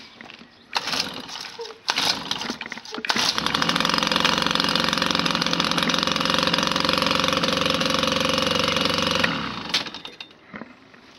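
Sachs Saxonette bicycle auxiliary engine, a small two-stroke, firing in two short bursts, then starting about three seconds in and running steadily for about six seconds before it is switched off.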